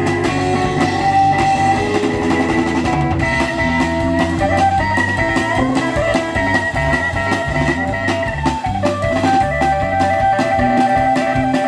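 Rock band playing an instrumental passage of the song, with guitar over a drum kit keeping a steady beat and no singing.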